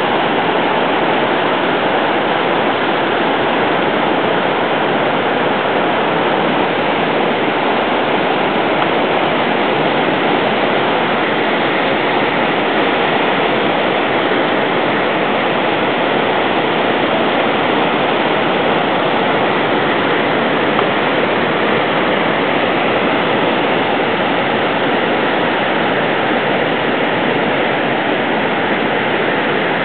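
The Potomac River in flood after days of heavy rain, its brown whitewater rushing through rapids in a steady, loud, unbroken noise.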